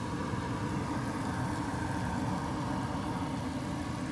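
Steady low machine-like rumble with a faint hum.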